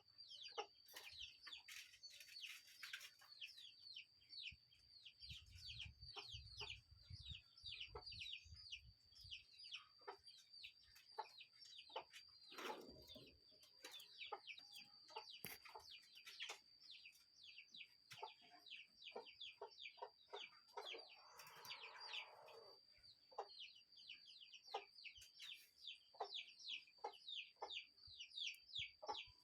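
Birds calling: a fast run of short high chirps, each falling in pitch, over a steady high-pitched whine, with a few lower, longer calls mixed in.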